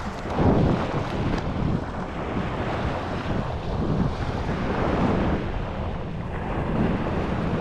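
Wind buffeting the microphone in uneven gusts over the steady wash of ocean surf. The strongest gust comes about half a second in.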